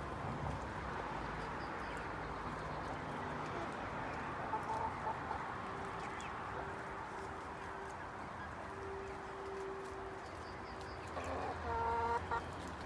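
Chickens calling: a few short clucks about four and a half seconds in, then a louder, brief call near the end, over a steady outdoor background.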